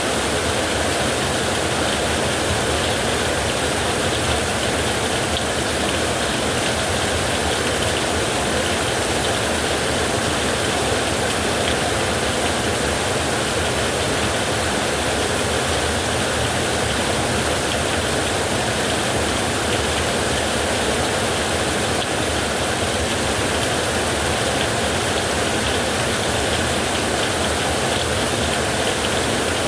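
Heavy rain falling steadily on a metal roof, with wind, as an even, unbroken wash of noise.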